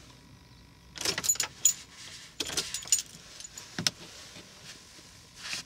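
Keys jangling on the ignition keyring in several short bursts of clinks as the key is worked, starting about a second in.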